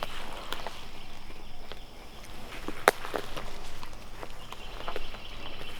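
Footsteps crunching through dry leaves and twigs on the woodland floor, with one sharp crack about three seconds in. Faint insects chirr steadily behind.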